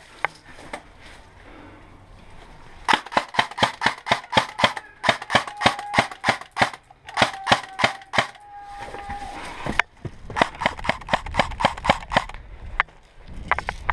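Airsoft gunfire: sharp clacking shots fired in quick succession, about four or five a second, in two volleys, the first starting about three seconds in and the second near ten seconds.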